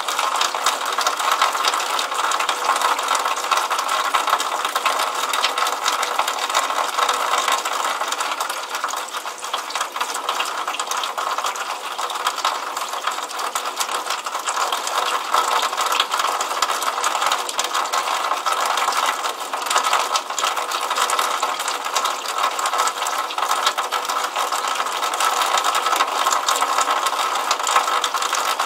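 Water running from a drainpipe outlet and splattering into a puddle: a steady, dense patter of small splashes.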